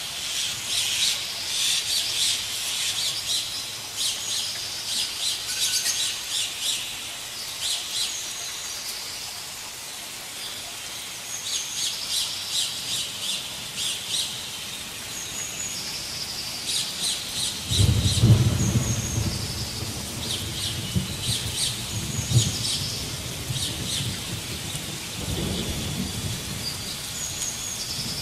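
Forest birds chirping and calling over and over, many short high notes overlapping. About two-thirds of the way through, a low rumble comes in and carries on for several seconds.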